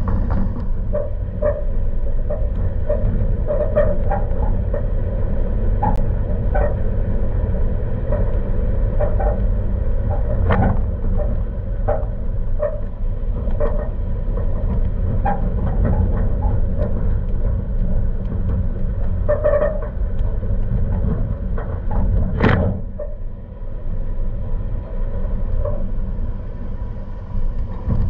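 Toyota Tacoma pickup driving slowly over a rough dirt trail: steady engine and tyre rumble with frequent short squeaks and creaks from the truck as it rocks over bumps. One sharper, louder knock about 22 seconds in.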